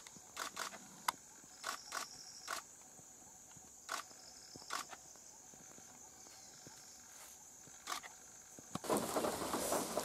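Steady, high-pitched drone of insects, with a handful of sharp clicks or taps scattered through it. About nine seconds in, a loud rush of heavy rain starts abruptly.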